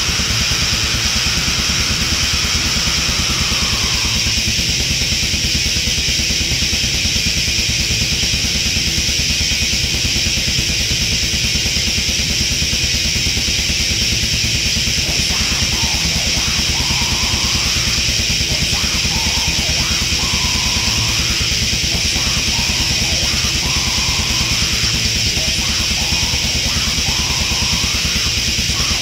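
Heavy metal song with distorted guitars and fast, driving drums. It is a loud, dense wall of sound, and from about halfway through a higher line bends up and down above it.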